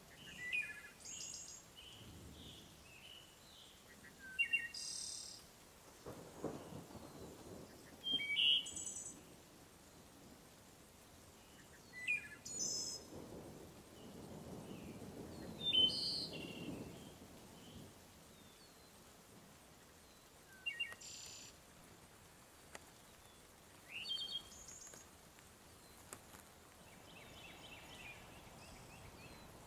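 Wild songbirds singing and calling, short high phrases of a few quick notes every couple of seconds. A soft low rushing noise swells up twice, about six seconds in and again mid-way.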